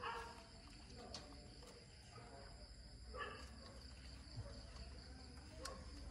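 Faint, steady, high-pitched chirring of insects in the background, with a short soft sound about three seconds in and a couple of small clicks.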